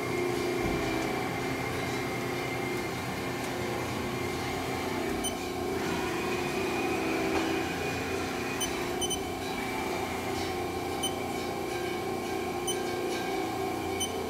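Haas SL-40T CNC turn-mill lathe running under power, a steady machine hum as its turret traverses along the bed toward the chuck. A thin whine joins about six seconds in and drops out a few seconds later, with a few faint ticks.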